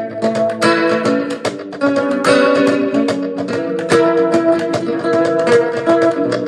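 Looped acoustic guitar: several layers of plucked notes ringing together, with sharp percussive knocks on the guitar's body.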